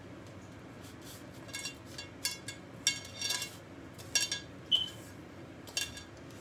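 A series of light clinks and taps against ceramic bowls while croquettes are dipped in egg and rolled in bread crumbs, the loudest near the middle.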